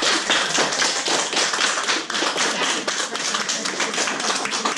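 A group of people clapping: dense, irregular applause that thins out near the end.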